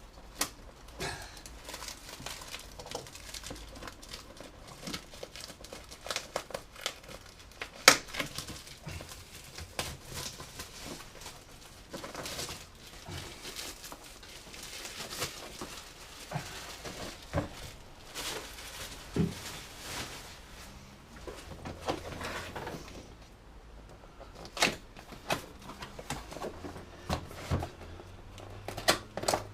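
Cellophane shrink-wrap being crinkled and torn off a plastic socket tray by hand, an irregular run of crackling with sharp clicks. One loud sharp click comes about eight seconds in.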